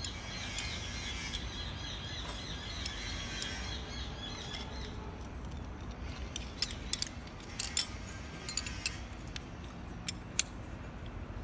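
A bird chirps rapidly and repeatedly through about the first five seconds. After that comes a run of sharp metallic clicks and clinks from spanners working on a jetter hose fitting.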